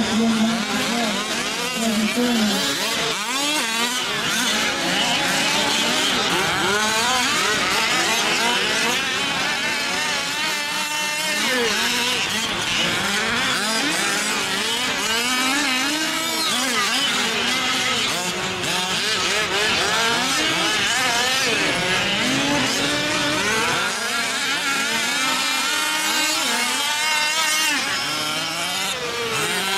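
Several 1/5-scale RC off-road trucks' small two-stroke gasoline engines racing together. Their overlapping pitches rise and fall constantly as they rev up and back off the throttle.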